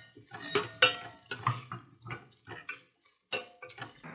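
Metal ladle clinking and scraping against a metal cooking pot in short, irregular strokes as cooked kohlrabi pieces are stirred into onion masala.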